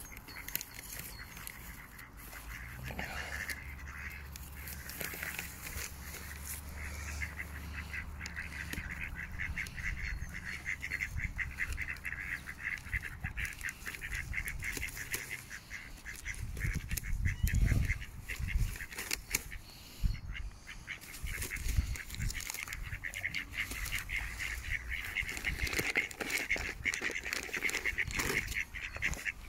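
A flock of mallards calling: many short quacks overlapping in quick succession, growing busier toward the end. A few low rumbles on the microphone, the loudest a little past halfway.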